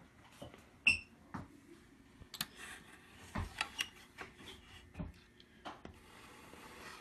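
Faint handling noise over a quiet shop room: scattered light clicks and taps, with a short high ping about a second in.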